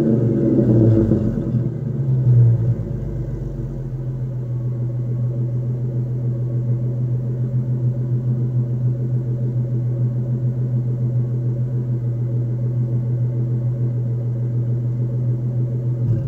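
2000 Ford Mustang's 3.8-litre V6 through a Mac dual exhaust conversion with the secondary cats replaced by straight pipe and shorty headers. The revs fall away, the throttle is blipped lightly twice in the first few seconds, and then the engine settles into a steady idle.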